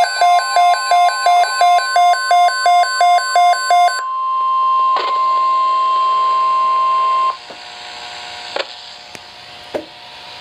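Emergency alert tones over a radio broadcast: rapid electronic beeps repeating nearly three times a second, then a single steady alert tone held about three seconds that cuts off suddenly, announcing a National Weather Service tornado watch. Afterwards a faint static hiss with a few sharp clicks.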